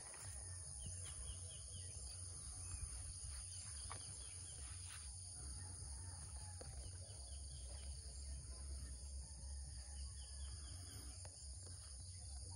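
Insects droning steadily at a high pitch, with faint bird chirps now and then and a low rumble underneath.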